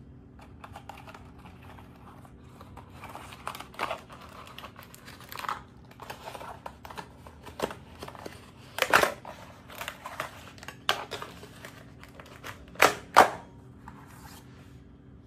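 Pleated lampshade rustling and crinkling as hands spread its folds open and fit it onto its wire frame, with irregular crackles; the loudest come about 9 seconds in and twice more near the end.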